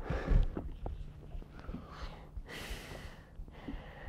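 A man breathing heavily, with a few loud exhales and a long sigh about two seconds in: the dismayed breathing of an angler who has just had a big bass break off.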